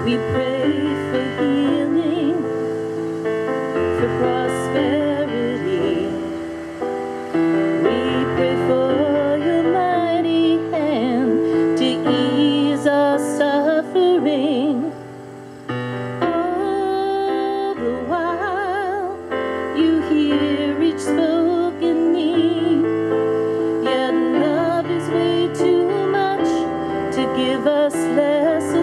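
A woman singing a slow worship song with piano accompaniment, her held notes wavering with vibrato.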